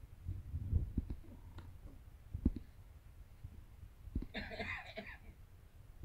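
Soft low thumps and rustling, the loudest about a second in and again about two and a half seconds in, with a short raspy burst of sound near the end.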